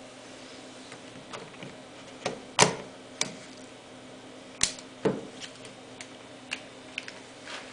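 Clicks and knocks of a Helios-81N lens being fitted and twisted onto a Nikon D80's F-mount bayonet. Two sharp, loud clicks come about two and a half and four and a half seconds in, among several fainter ones.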